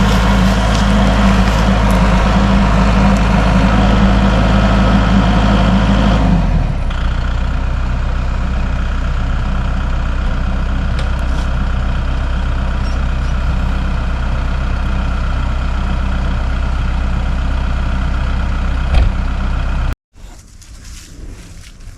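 Tractor engine running steadily, easing to a lower speed about six and a half seconds in. A single knock comes near the end, then the engine sound cuts off suddenly.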